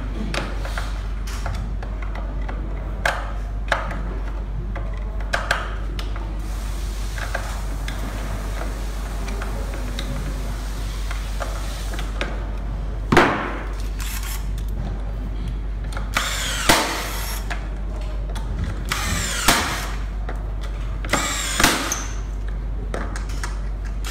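Hand work on a KingSong KS-16 electric unicycle's plastic shell: scattered clicks and knocks over a steady low hum, with a few louder short scrapes and whirs in the second half as an electric screwdriver is put to the shell's screws.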